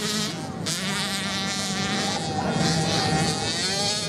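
Dirt bike engines running hard as they race along the beach sand, a buzzing note that rises and falls in pitch.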